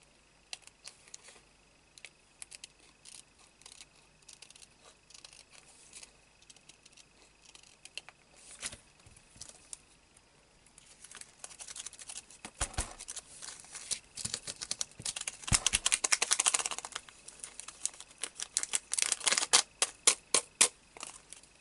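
Faint snips of scissors trimming a clear plastic shaker pocket. From about halfway on, the plastic crinkles and crackles loudly in clusters as it is handled, with sequins rattling inside.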